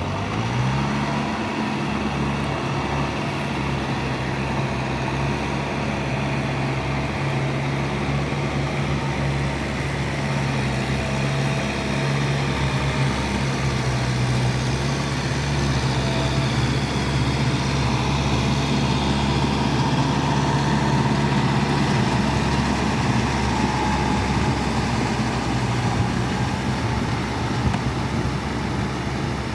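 Kubota tractor's diesel engine revving up in the first second, then running steadily.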